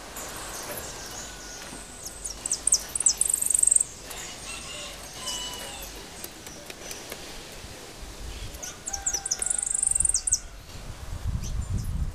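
Caged brown-backed solitaire (jilguero) singing: two song phrases of thin, very high, quickly repeated notes that run into a fast trill, about two and a half seconds in and again about nine seconds in, with lower whistled notes between. A low rumble rises near the end.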